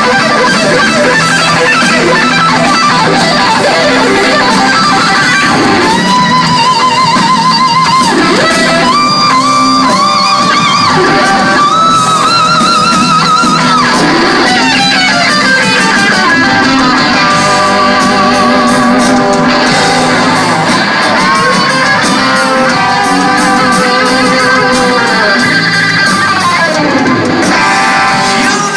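Live rock band playing an electric guitar solo: held lead guitar notes with wide vibrato and bends over the full band's backing.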